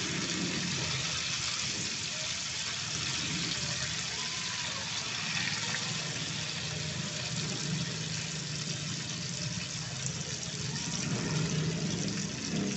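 Masala-coated fish pieces deep-frying in hot oil in a wok, a steady sizzle with a low hum underneath.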